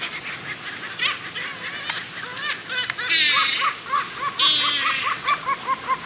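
A flock of gulls calling: repeated short arching cries, then two long harsh squawks about halfway through, followed by a fast run of short calls about four a second.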